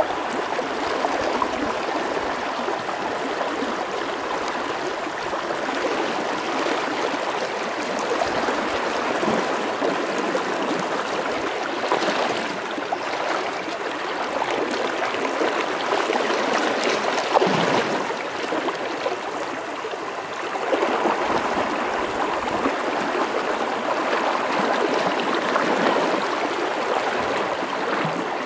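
Steady rushing of a flowing river, a continuous even wash of water noise.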